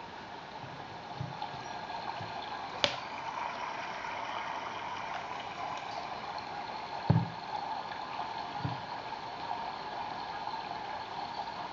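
Recorded babbling-stream nature sound played back by the mushroom lamp's built-in sound module, a steady water rush that grows a little louder over the first few seconds as the volume knob is turned. A sharp click about three seconds in and two low knocks around seven and nine seconds come from the lamp being handled.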